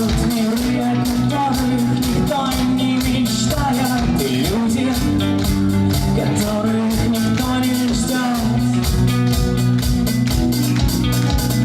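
A rock band playing live, with a steady drum beat, sustained bass and guitar, and a singing voice.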